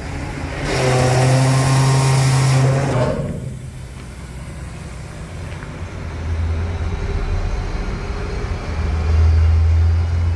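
Rear-loader garbage truck's diesel engine and hydraulics working the packer mechanism. A loud hiss with a steady hum starts about a second in and lasts about two seconds, then the low engine drone swells twice as the revs rise under the hydraulic load.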